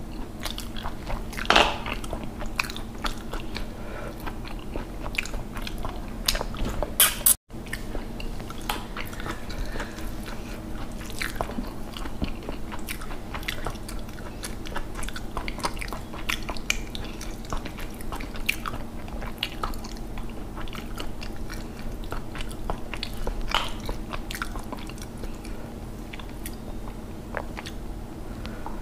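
Close-miked chewing and smacking of a person eating rice and fish curry by hand, with many short wet mouth clicks and an occasional crunch. There is a momentary cut-out about seven seconds in.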